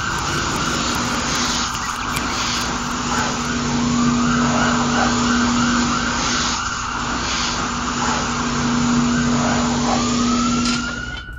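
Fine water jet from a toy fire hose nozzle spraying onto burning sticks, a steady hiss over a steady low hum. It cuts off near the end.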